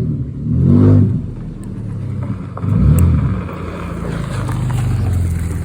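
A motor vehicle's engine running close by, swelling twice in pitch and loudness like revving, about a second in and again about three seconds in.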